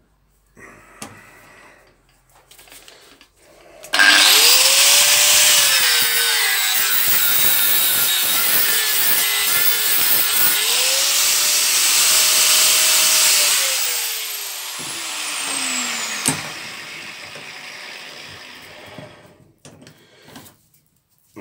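Angle grinder with a cut-off disc starting about four seconds in and cutting through a vise-clamped workpiece with iron inside it, its motor pitch dipping and recovering under load. Near the middle it is switched off and spins down with a falling whine.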